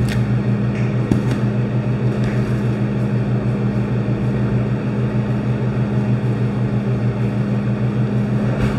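A steady, loud mechanical drone with a low hum and a faint pulse. A few light clicks of a metal fork against a plate sound over it.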